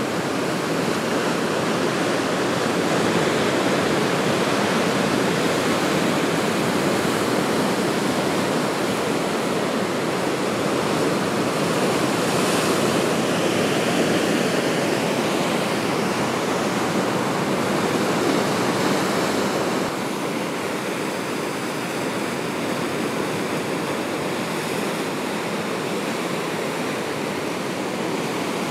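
Sea waves washing onto a beach: a steady surf noise, a little quieter from about twenty seconds in.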